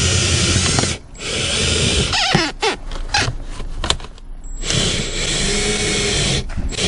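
Cordless drill running in bursts, winding the fiber cut-out line through the windshield's urethane bead. It runs steadily, stops for a moment about a second in, runs again, then gives way to a stretch of short sharp noises in the middle before running steadily once more.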